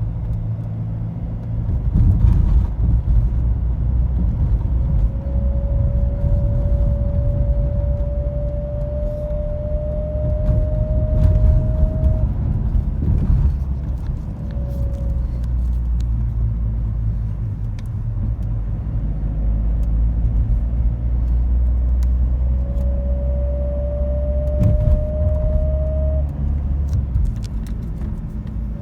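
A BMW X3 E83 driving, with a thin whine over the low road and engine rumble. The whine rises slowly in pitch from about five to twelve seconds in, comes back briefly falling near fifteen seconds, and rises again near the end. It is speed-related: it appears only between about 45 and 50 km/h and has nothing to do with wind or the air conditioning.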